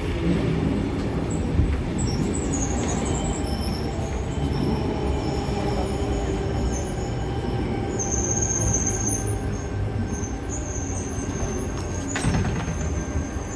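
Sydney Trains electric suburban train running on the rails, with a steady rumble and thin high wheel squeal. There is a single sharp knock near the end.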